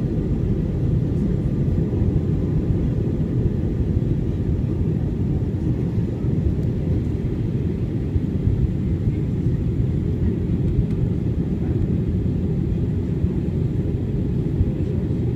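Steady aircraft cabin noise in flight: the even, low rumble of the engines and airflow heard from inside the cabin.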